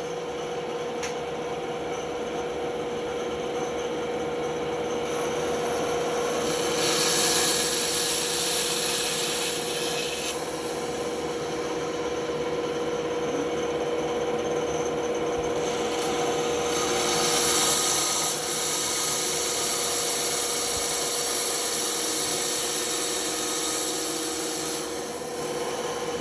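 Band saw running with a steady hum, its blade cutting into a workpiece in two longer passes, the first a few seconds in and the second from about the middle to near the end.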